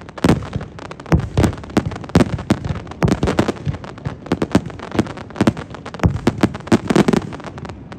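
Fireworks finale: a dense barrage of aerial shell bursts going off several a second with crackle between them, stopping suddenly just before the end.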